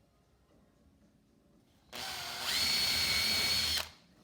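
Power drill boring a 4.5 mm hole through a timber rail. It starts nearly two seconds in, comes up to a steady high whine at full speed, and stops after about two seconds.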